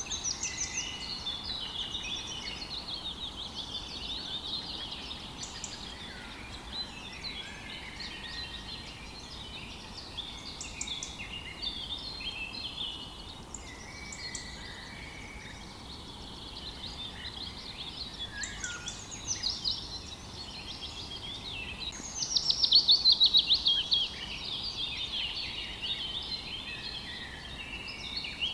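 Several songbirds singing and calling at once in a busy chorus, with one loud, fast run of falling notes about three-quarters of the way through. A faint, even rush of a river sits underneath.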